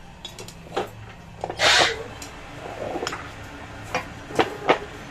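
Metal rod clinking and scraping against a steel compression mold as a freshly molded rubber part is pried out of it. There are scattered sharp clinks, a short scrape about one and a half seconds in, and two louder knocks near the end.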